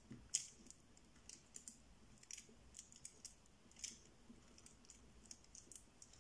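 Fingertips rubbing and pressing a glued rubber patch down onto a bicycle inner tube to seal its edges: faint, irregular little scratches and clicks.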